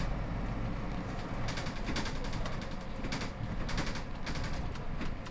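Mercedes-Benz Citaro C2 city bus idling at a stop, a steady low diesel rumble, with a few short sharp clicks or knocks over it.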